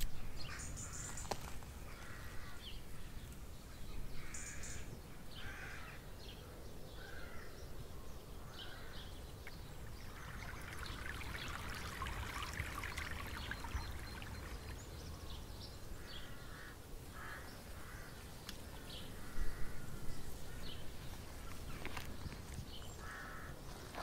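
Garden ambience: birds calling now and then, and a small fountain pump splashing water in a metal bird bath for a few seconds around the middle.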